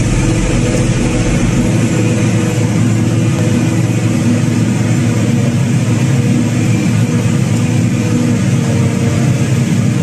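Yongmeng 9QS-350 self-propelled silage harvester running under load while cutting and chopping standing corn: a loud, steady engine and machinery drone.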